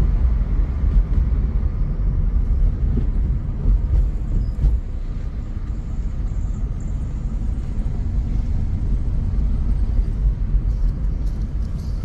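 Maruti Suzuki Swift driving, heard from inside the cabin: a steady low rumble of engine and tyres on the road.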